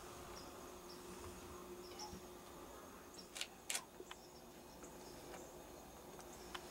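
Quiet woodland ambience at dusk: faint insect buzzing and scattered short high chirps over a steady low hum, with two sharp clicks about three and a half seconds in.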